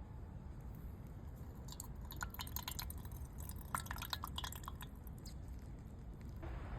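Water dripping: a quick run of small drops with short pitched plinks, between about two and five seconds in, over a steady low rumble.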